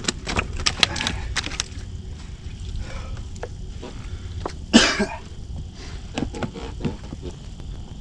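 Clicks, knocks and scrapes of someone moving about and handling things on a rocky riverbank, dense in the first couple of seconds and sparse after. One short, louder cough-like vocal burst comes about five seconds in, over a low steady rumble.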